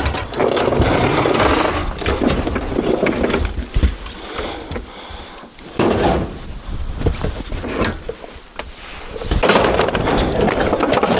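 Scrap items being shifted and loaded, with scraping and clattering and a few sharp knocks, the loudest about four, six and nine and a half seconds in.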